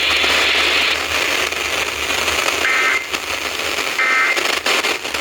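FM radio hiss and static, then two short warbling data bursts of an Emergency Alert System (SAME) code about a second apart: the end-of-message tones that close a broadcast weather alert.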